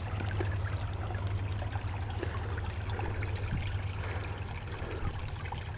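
Small creek trickling and burbling steadily, with a few faint ticks.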